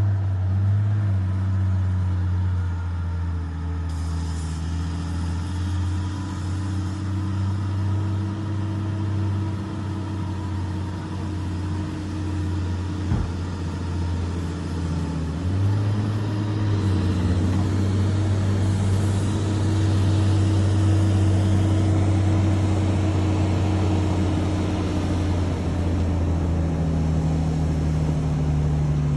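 Excavator's diesel engine running steadily, its note dipping and rising as the load changes, with a single sharp knock about halfway through.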